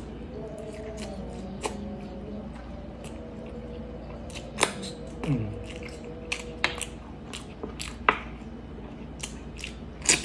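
Close-up eating sounds: a person chewing and sucking on a piece of pork hock braised in cola, with irregular wet lip smacks and finger licking.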